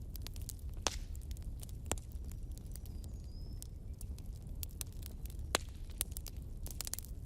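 Wood fire in a fireplace crackling: frequent sharp pops and snaps of burning logs over a steady low rumble of the flames, with louder pops about a second in, about two seconds in and past the middle.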